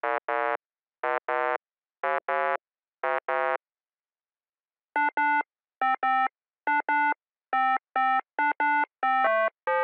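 Electronic synthesizer beeps: pairs of short notes at one pitch, about one pair a second, then a pause of about a second and a half, then a quicker run of higher notes that steps down in pitch near the end.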